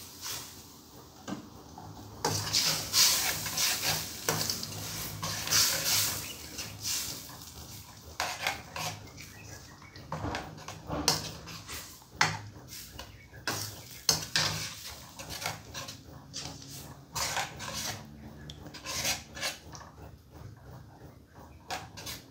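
A spoon or spatula stirring crab curry in a cooking pot, scraping and clattering against the pot in irregular strokes.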